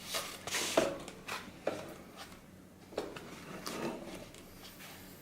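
Hands handling an aftermarket car head unit and its cables: rubbing and scraping with a few light knocks.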